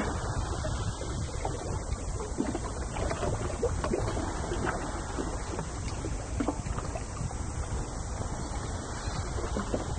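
Wind rumbling on the microphone over the steady wash of the sea, with faint scattered splashes and ticks.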